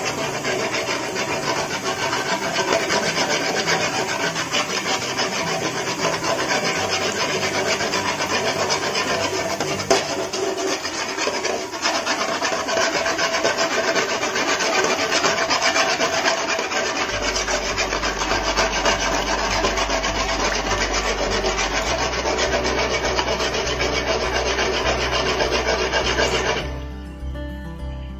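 Mangalore buns sizzling steadily as they deep-fry in hot palm oil in an aluminium wok, while a ladle stirs the oil around and over them so the buns puff up. The sizzling cuts off suddenly about 26 seconds in, leaving background music, which can also be heard faintly underneath it from about 17 seconds.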